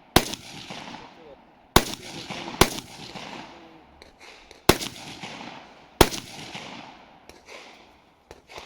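Rifle shots on an IPSC practical shooting stage: five shots at uneven intervals over about six seconds, each followed by a long echo that dies away, then a few faint clicks.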